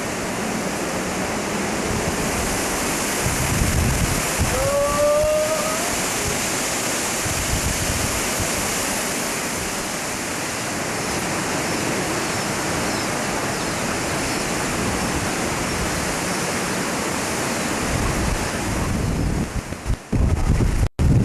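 Hurricane-force wind blowing hard and steadily through trees, with a brief rising squeak about five seconds in. The sound cuts out for a moment near the end.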